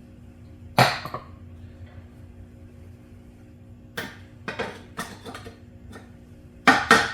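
Brass hammer knocking on the mower engine's flywheel to jar it loose: sharp metallic knocks with a short ring, one about a second in, a quick run of blows around four to six seconds, and two loud ones near the end.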